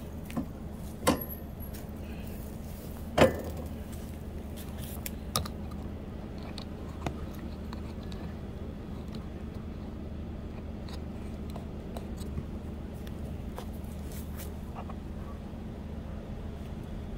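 A steady low mechanical hum with several sharp clicks and knocks over it, the loudest about three seconds in.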